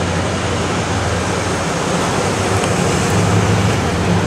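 1969 Ford Galaxie 500XL's 429 cubic-inch Thunderjet V8 running as the car drives past, a steady low engine drone inside a loud rushing noise, growing a little louder as the car comes close.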